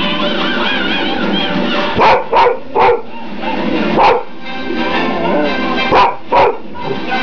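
A dog barks six short times, in quick pairs and singly, over film soundtrack music that plays throughout.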